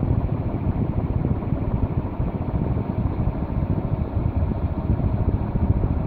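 Midea ceiling fan with SMC AK56 blades running: a steady, deep whoosh of moving air, with the fan's downdraft buffeting the microphone.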